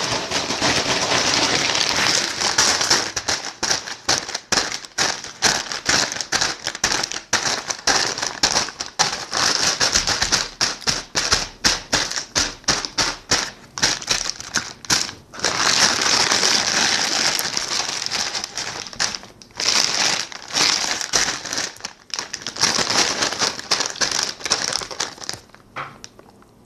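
A crinkly chip bag being rummaged through by hand: a steady run of crackling rustles with a few short breaks, dying away near the end.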